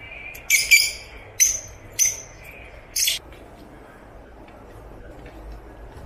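Fischer's lovebirds calling: about five short, shrill, high calls over the first three seconds.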